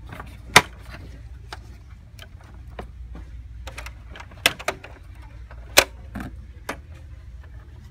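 Sharp plastic clicks and snaps from a toy crane truck's moving parts being worked by hand: a fold-out stabilizer leg, then the cab door. There are about five loud clicks, with fainter ones between, over a steady low hum.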